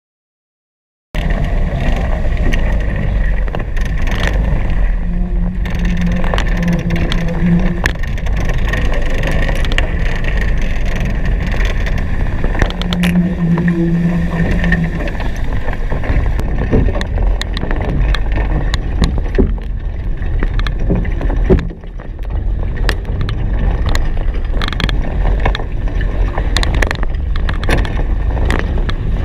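Wind buffeting the microphone with water rushing and splashing, on a Hobie Cat 16 catamaran under sail at speed. The loud, rumbling noise starts abruptly about a second in and runs steadily, with scattered sharp clicks.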